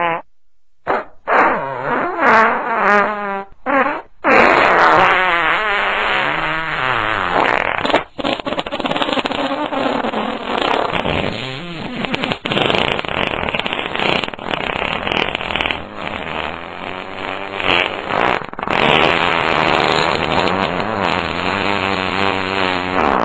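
Comedic fart sound effects: several short wobbling blasts in the first few seconds, then a long, nearly unbroken run of wavering farts whose pitch bends up and down.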